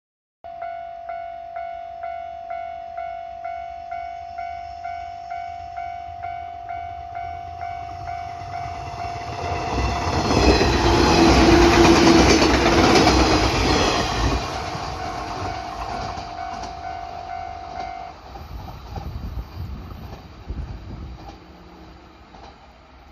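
Japanese railway level-crossing warning bell ringing about twice a second while a train approaches and passes over the crossing, its wheels clacking over the rails, loudest about halfway through. The bell stops a few seconds after the train has gone by, and the train fades away.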